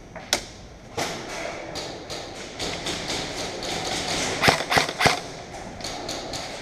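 Scattered airsoft gunfire: a run of short, sharp cracks and lighter clicks, with single loud shots near the start and a quick group of three loud ones about four and a half seconds in.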